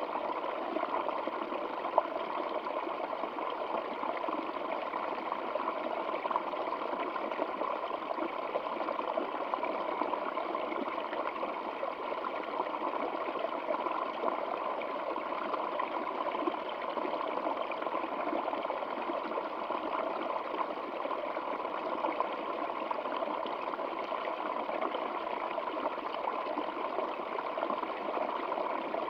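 Stream water flowing steadily, an even trickling and gurgling noise with little low rumble and one brief tick about two seconds in.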